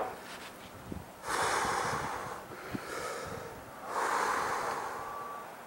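A person breathing out heavily close to the microphone, twice, each long breath starting sharply and fading away: catching their breath after the steep climb.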